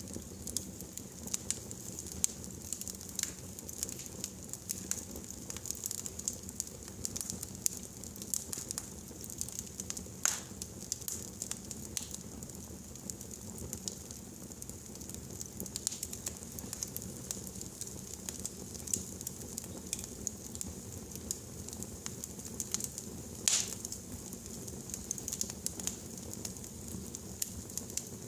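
Wood fire burning in a fireplace: a steady low rumble and hiss of the flames with irregular sharp crackles and pops, two louder pops about ten and twenty-three seconds in.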